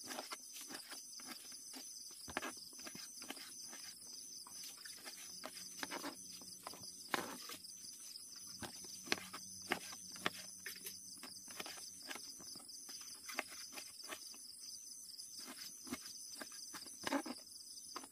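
Kitchen knife slicing tomatoes on a plastic cutting board: irregular sharp taps as the blade hits the board, a few louder knocks among them. Insects chirp steadily in the background and stop just after the end.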